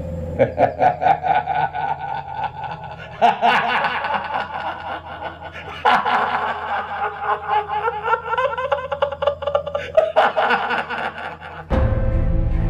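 A man laughing in long fits of quick, pulsing bursts, with short breaks between them; music comes in near the end.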